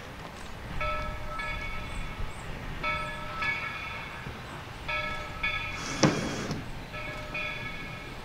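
A bell ringing in a steady rhythm, strikes coming in pairs about every two seconds, each ringing briefly. A low rumble runs underneath, and about six seconds in there is one short, loud burst of noise.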